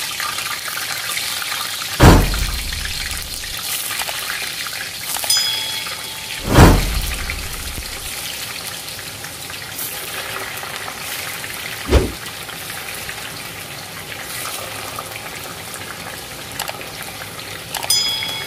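Eggplant slices deep-frying in a pot of hot oil: a steady, vigorous sizzling hiss. Three heavy dull thumps stand out, about 2, 6.5 and 12 seconds in, with a couple of light metallic clinks.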